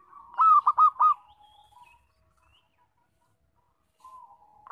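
Zebra dove (perkutut) cooing loudly. A soft lead-in note is followed about half a second in by a quick rolling run of four strong notes. The next phrase starts near the end.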